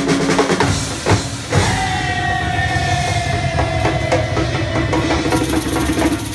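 Percussion ensemble playing drums: a few heavy hits in the first second and a half, then fast, dense drumming under a long held note that slowly falls in pitch.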